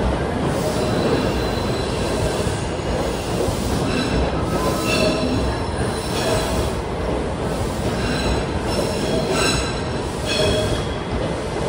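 Washington Metro 3000-series train at the platform, with a steady rumble and short high metallic squeals that come and go from about four seconds in.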